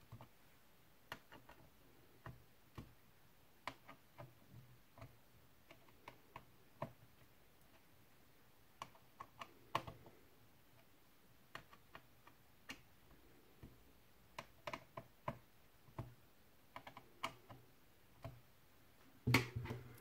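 Small screwdriver working the screws of a laptop CPU heatsink's metal plate as they are tightened in a cross pattern: faint, irregular clicks and ticks, with a louder clatter near the end.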